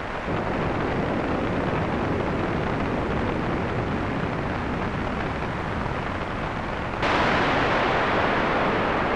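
Synthesized rainstorm from a VCV Rack modular patch: gusting, filtered white noise standing in for wind and rain. It swells in, then about seven seconds in it jumps suddenly louder and brighter and holds there.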